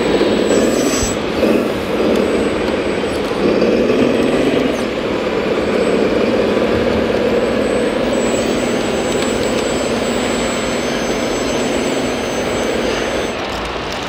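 Radio-controlled scale model trucks and an excavator working on a dirt course, with a steady truck-engine drone from their onboard sound units.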